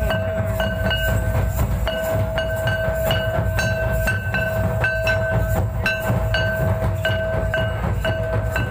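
Outdoor folk dance music: regular drum-like beats about three times a second under a repeating high held tone in short notes, over a low rumble of crowd noise.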